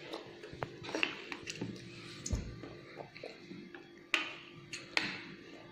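Small plastic clicks and taps as a plastic dropper, a plastic bowl and a plastic paint palette are handled, with two sharper clicks in the second half.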